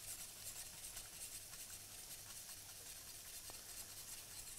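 Faint whisking: a wire whisk stirring semolina into hot milk and water in a stainless-steel saucepan as the grains are poured in.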